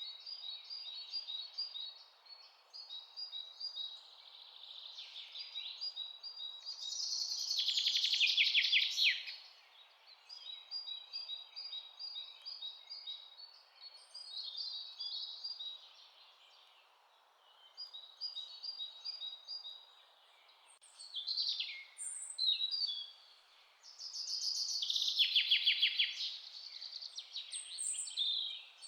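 Songbirds chirping in a forest: repeated short high chirps, broken twice by a louder, rapid trill of about two seconds, over a faint steady hiss.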